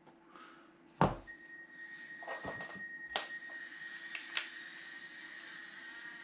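A sharp knock about a second in, then a few lighter clicks, like objects being handled on a bench, over a faint steady high whine and a low hum.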